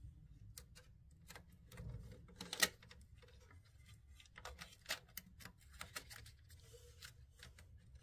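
Scattered light clicks and taps of fingers handling and pressing a plastic cover back into place over the AP board of a Bambu P1P 3D printer, the sharpest click about two and a half seconds in.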